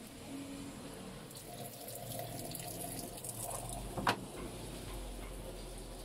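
Water running into the tub of an Aftron AFWA1400 top-loading automatic washing machine as it fills, with a single sharp click about four seconds in.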